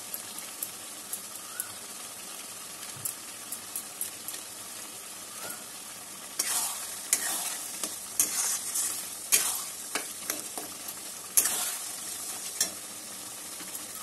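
Spicy gravy sizzling in a metal kadai on a gas burner, with a few light ticks in the first half. From about six seconds in, a long metal spatula scrapes and stirs around the pan in a run of strokes.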